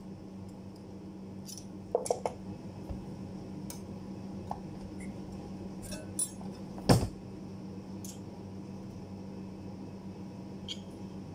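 Light metallic clinks as a steel rule cutting-die blade is handled and set in a hand-lever rule bender, with a sharper metal knock from the bender about seven seconds in. A steady low hum runs underneath.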